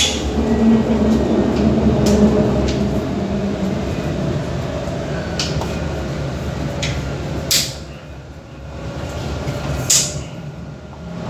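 Inside a moving light-rail tram: a steady low running rumble with a faint steady whine. A few sharp clicks or knocks come through, most strongly about 7.5 and 10 seconds in. The rumble eases quieter for a stretch about 8 seconds in.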